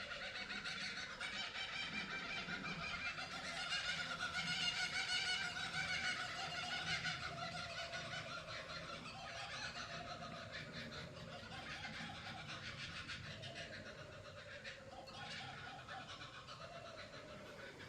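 Bird-like animal calls, many short wavering calls overlapping in a continuous chatter. It grows louder a few seconds in, then eases off.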